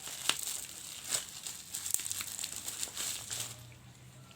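Plastic packaging crinkling and rustling as it is handled and pulled open by hand, with sharp crackles, dying down near the end.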